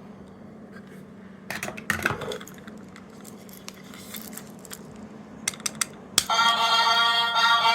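Small plastic capsule toys being handled: scattered clicks and a short clatter, then a few sharp clicks like a button being pressed. About six seconds in, a toy's electronic sound chip starts playing a loud, steady pitched electronic sound.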